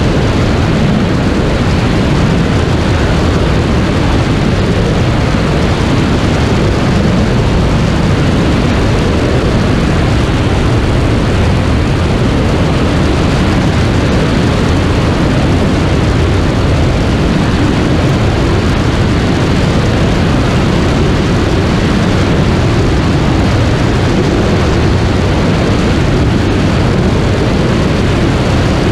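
Sonex light aircraft in cruise flight, heard from a camera mounted outside the airframe: steady, loud wind rush over the microphone mixed with the propeller and engine noise, heaviest at the low end and unchanging throughout.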